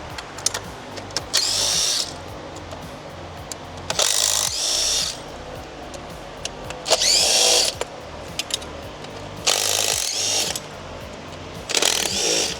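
A handheld power tool runs in five short bursts, roughly every two and a half seconds, its motor whine rising in pitch as it spins up each time, the way a tool sounds driving fasteners out during an engine teardown.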